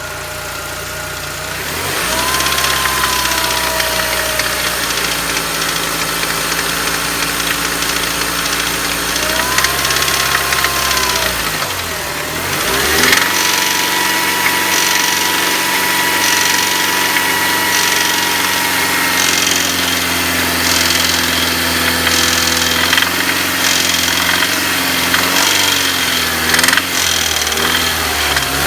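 BMW M43 inline-four petrol engine running, its speed stepping up and down a couple of times before settling. It has an uneven knock that comes and goes in waves, which the owner says appears only once the engine has warmed up.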